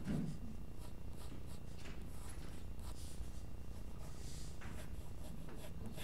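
Graphite lead holder sketching on paper: a run of short, scratchy pencil strokes across the sheet, with a brief soft thump right at the start.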